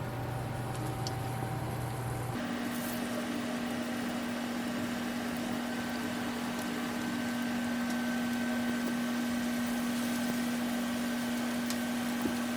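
Steady hum with a hiss, like an electric appliance running. The hum's pitch jumps up about two seconds in and then holds steady.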